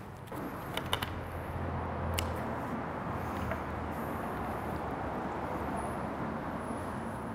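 Gloved hands handling a trussed raw turkey on a metal sheet pan: a few light clicks and knocks in the first couple of seconds, over a steady rushing noise.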